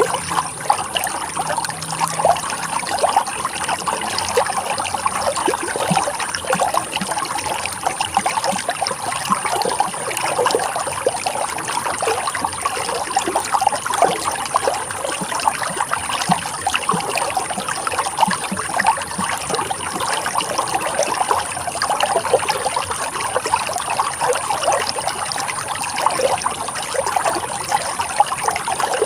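Running water trickling and splashing steadily over rocks, a continuous burble of small splashes with no break.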